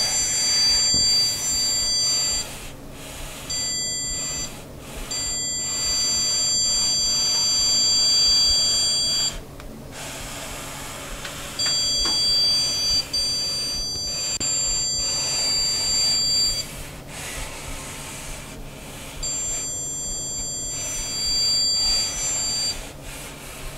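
Zircon electronic stud finder sounding a high, steady beep in five stretches of one to five seconds as it is slid across drywall. The tone signals a stud behind the wall.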